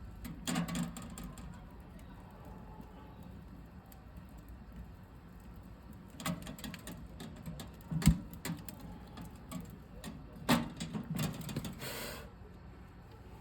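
Wood fire burning in a small sheet-metal camp stove, with scattered crackles and knocks in small clusters and one loud sharp crack about eight seconds in, over a low steady background.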